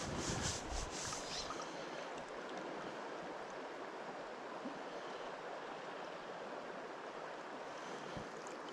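Steady rushing of a shallow freestone stream flowing over a gravel bed, with brief low rumbling in the first second or so.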